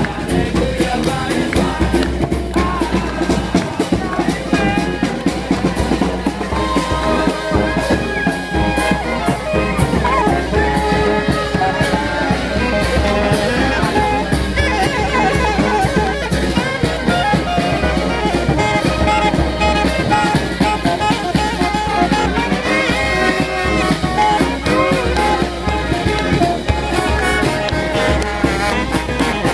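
Brass band playing an upbeat gospel tune: trumpets and saxophones carry the melody over a steady drum beat.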